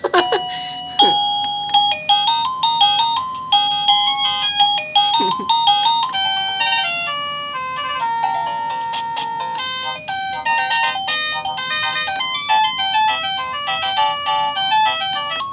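Liztek portable wireless doorbell receiver playing one of its built-in ringtone tunes: a quick electronic melody of bright, chime-like notes.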